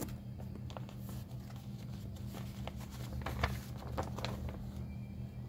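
Quiet room tone with a steady low hum, and a few faint clicks and rustles that bunch together a little past the middle.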